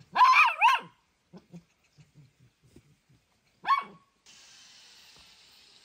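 Small dog yipping: two quick high yips right at the start and one more a few seconds later, with faint soft taps between. A faint steady hiss sets in for the last second and a half.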